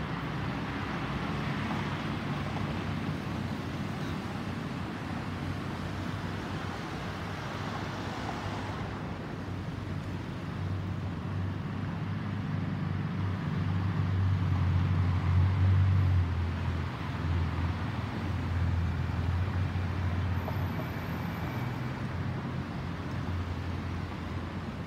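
Airbus A320-216's twin CFM56 turbofan engines droning as the airliner climbs out overhead, a low rumble that swells from about a third of the way in and is loudest a little past halfway.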